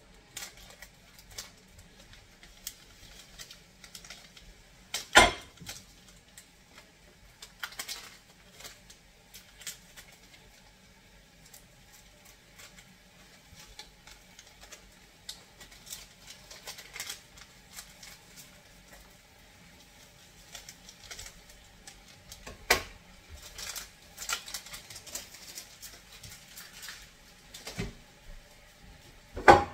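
Scattered small clicks, rustles and crinkles of spice sachets being snipped open with scissors and handled over a cooking pot. There are three louder sharp knocks: about five seconds in, about 23 seconds in, and at the very end.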